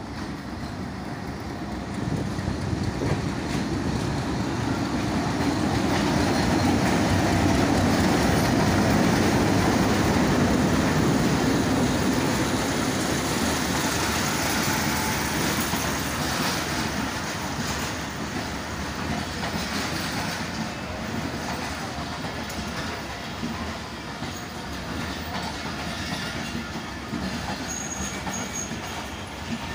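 Millat Express passenger train arriving: a continuous rumble with the clickety-clack of wheels over rail joints and some wheel squeal. It swells a couple of seconds in, is loudest for several seconds, then slowly eases.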